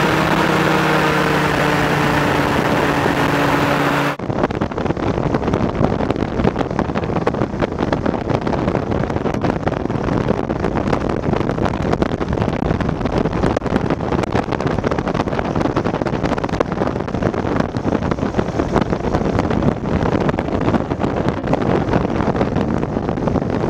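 Powered parachute's engine and propeller running steadily in flight, heard as an even multi-tone drone. About four seconds in, the sound cuts abruptly to a rough, steady noise with no clear pitch.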